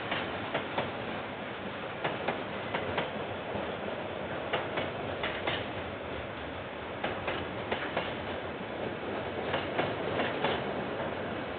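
Freight train wagons rolling past on steel rails: a steady rush of wheel noise, broken by irregular sharp clicks as wheels cross rail joints.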